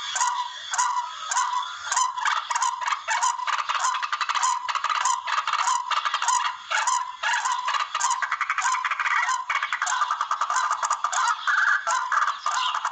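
Recorded calls of the tikling, a Philippine rail, used as a hunting lure call: a continuous run of rapid, harsh, repeated notes and clicks.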